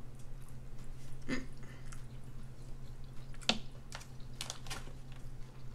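Close-miked chewing and mouth smacking while eating king crab in sauce, with scattered sharp wet clicks, the loudest about three and a half seconds in. A low steady hum runs underneath.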